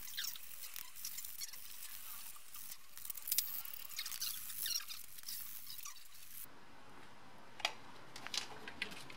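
Abrasive sheet rubbed by hand over a grey-primed metal lamp part: quick, scratchy sanding strokes. About six and a half seconds in it gives way to a quieter steady background with one sharp click.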